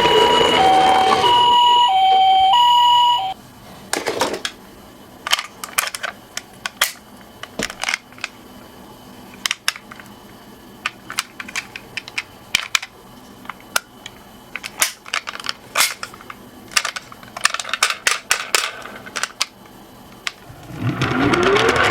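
Japanese-style two-tone ambulance siren alternating high and low, cutting off about three seconds in. Then sporadic sharp clicks and clacks of die-cast toy cars on a slope track, and near the end a louder noisy sound with a rising pitch glide.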